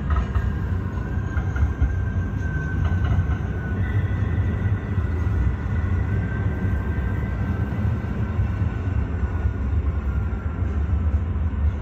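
Train running: a steady low rumble with a faint high whine that slowly falls in pitch.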